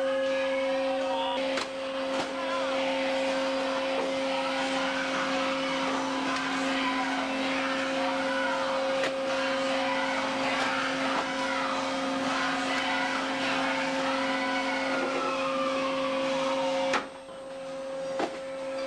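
Steady machinery drone with a constant low hum and a rushing noise over it. Near the end it drops away abruptly, with a couple of knocks.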